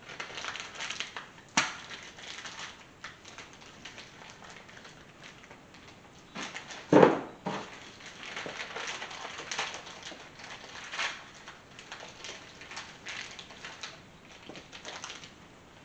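Handling noises as an oil pan is seated on its rubber gasket on the engine and its hardware gathered: scattered clicks, rustles and light knocks, with one sharper knock about seven seconds in.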